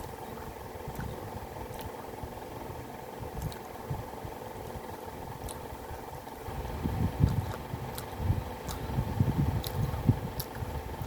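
A person chewing a mouthful of food close to the microphone: soft, irregular chewing noises with small wet clicks, getting louder about two-thirds of the way in. A steady low hum runs underneath.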